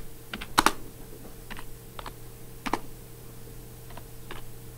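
Computer keyboard keys pressed one at a time: a handful of separate clicks with pauses between them, the loudest a quick pair a little over half a second in. A steady low hum runs underneath.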